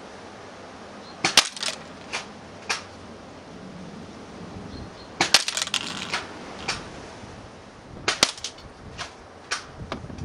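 Airsoft BBs from a Tokyo Marui SPAS-12 shotgun hitting a paper target on a plastic pellet-trap box: three volleys of sharp clicks and rattles, about a second in, near the middle and near the end, several pellets striking almost at once, with a few single ticks between.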